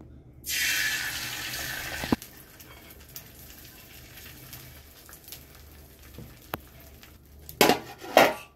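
Beaten egg poured onto a hot iron tawa: a loud sizzle breaks out about half a second in, fades after a second and a half, and goes on as a quieter sizzle as a bread slice is pressed into it. Near the end, two loud clanks as a steel lid is put over the tawa.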